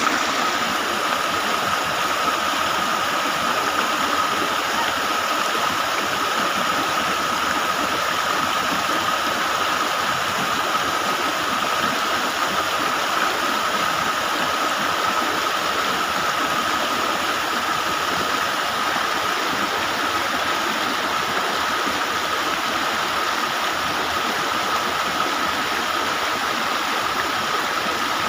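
Creek water rushing steadily over a small weir. A thin, steady high tone runs through the rushing throughout.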